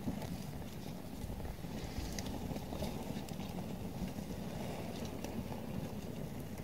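Small campfire of sticks burning, with a few faint crackles and clicks as sticks are pushed into the flames, over a steady low rush.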